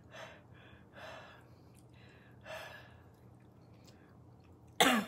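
A woman breathing hard through her mouth three times over the first three seconds, reacting to the burn of spicy food, then near the end a short loud vocal exclamation that falls in pitch.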